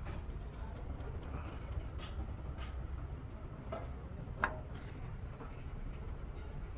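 Steady low background rumble with scattered light clicks and taps, and one sharper click about four and a half seconds in.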